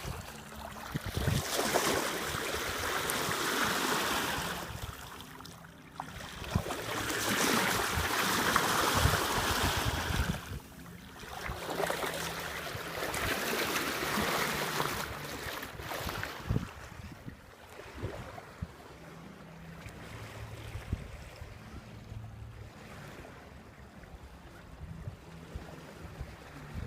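Sea water rushing and washing along a sailboat's hull as it moves under way, swelling and fading in surges every four seconds or so, quieter in the last third.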